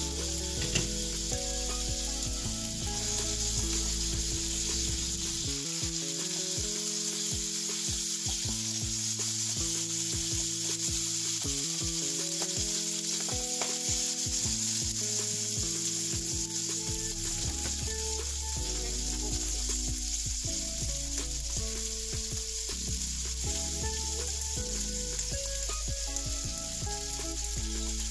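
Sweet pork longanisa sausages sizzling steadily as they fry in a pan, browning in their own fat and sugary juices.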